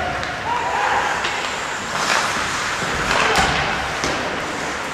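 Live ice hockey play: skates scraping on the ice and sticks on the puck, with sharp knocks about two and three and a half seconds in, the later one the loudest, and a brief call from a player early on.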